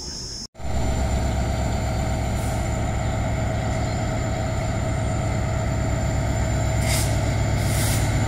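Twin diesel freight locomotives, an EMD WDG4 and a GE WDG4G working together, running under load as the train approaches: a steady low engine rumble that starts about half a second in and slowly grows louder. Two short hisses come near the end.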